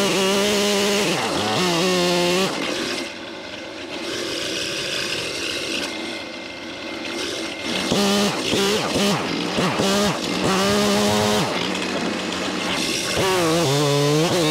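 Gas chainsaw at high revs cutting into mimosa stumps. It drops back to a quieter idle about three seconds in, then revs up and cuts again, its pitch rising and falling under load, with a short dip before a last rev near the end.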